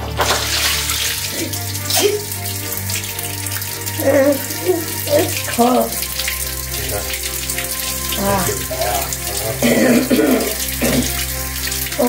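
Water spraying in a strong jet from the opened drain valve of an electric 50-gallon water heater tank and splashing onto a concrete floor, flushing sediment out of the tank. It starts suddenly as the cap comes off and then runs steadily.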